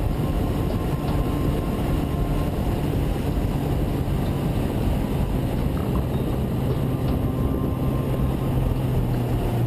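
Suzuki Bandit inline-four motorcycle engine running at a steady cruise, a low even drone under heavy wind noise buffeting the helmet-mounted microphone.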